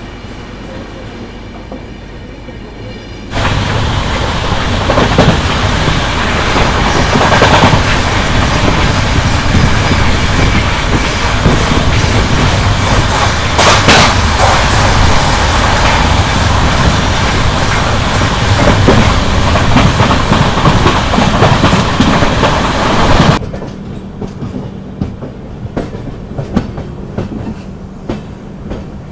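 Passenger express train running on the rails, a steady rumble with wheel clatter. A few seconds in it suddenly gets much louder, with one sharp clank in the middle, and near the end it drops back just as suddenly.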